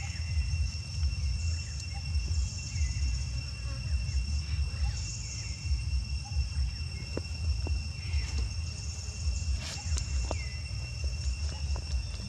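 Outdoor ambience: a steady high insect drone over a low rumble, with a few faint clicks.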